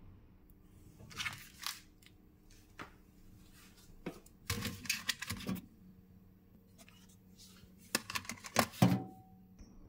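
Plastic food tray and lid handled inside a microwave oven: scattered plastic clicks, taps and crinkles, in short clusters, the loudest near the end as the lid is set on the tray.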